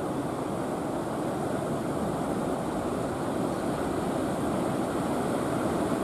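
Big ocean surf breaking and washing in a steady, even rush of noise, with no single wave standing out.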